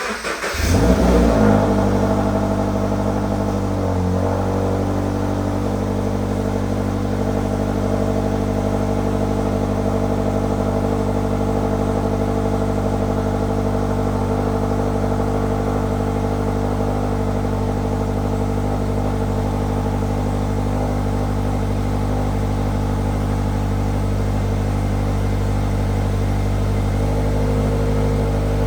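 Cold start of a 2020 Subaru BRZ's 2.0-litre flat-four boxer engine on its stock exhaust. It cranks and catches, flares up about a second in, then settles into a steady fast cold idle. The tone shifts slightly near the end.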